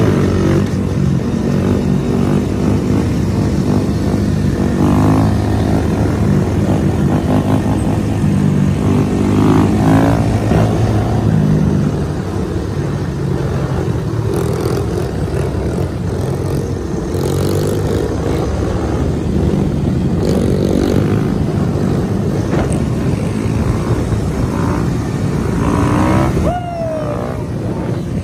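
Mini bike engines running and revving past, their pitch rising and falling as the riders pull wheelies.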